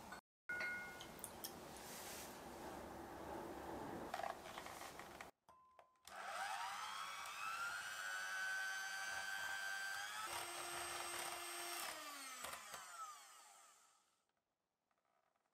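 Light kitchen handling noise, then an electric hand mixer motor starts, rises in pitch to a steady whine, shifts pitch once and winds down to a stop.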